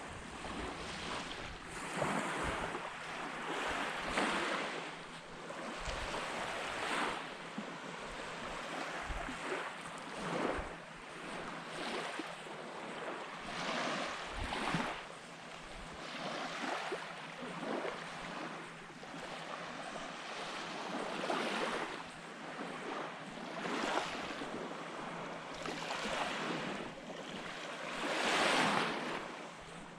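Surf on a beach: small waves breaking and washing ashore, the noise swelling and easing every second or two, loudest near the end.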